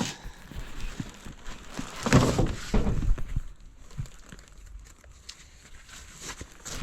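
Old packaging tearing and crinkling as it is pulled apart, with a few light knocks of handled items.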